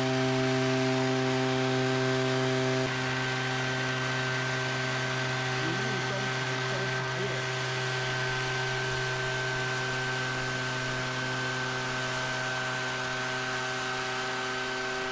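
Small engine of a portable tea-plucking machine running steadily at constant speed as it shears along a row of tea bushes, giving an even buzzing hum.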